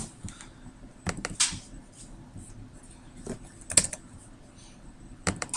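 Scattered clicks of a computer mouse and keyboard, single clicks and quick pairs spread a second or two apart.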